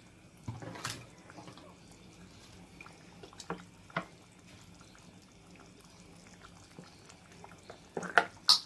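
Thick fish curry bubbling gently in a clay pot, with scattered soft pops of bubbles bursting on the surface. A few sharp clicks near the end are the loudest sounds.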